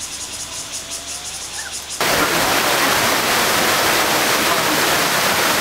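Quieter forest sound with a pulsing high-pitched insect chorus and a few thin whistles, then about two seconds in a sudden switch to the loud, steady rush of a mountain stream flowing over rocks.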